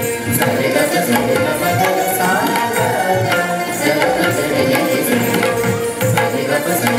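Indian classical dance music for Bharatanatyam: steady hand-drum strokes under a sustained melodic line.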